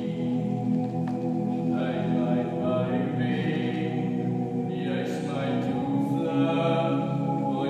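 Male a cappella group singing, several voice parts holding sustained chords that change every second or two.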